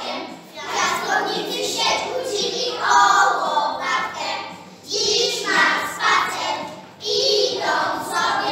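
A group of young children singing together in unison, in phrases of about two seconds with short breaths between.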